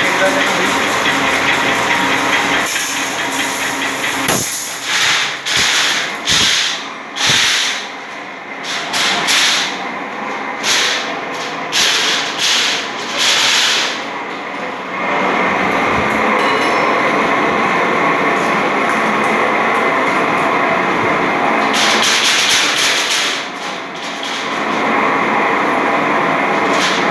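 Aluminium grill-making machine running, its roller of slitting discs cutting an aluminium strip into grill mesh: a loud, steady mechanical clatter. From about three to fourteen seconds in, and again briefly near the end, it rises and falls in an uneven run of surges.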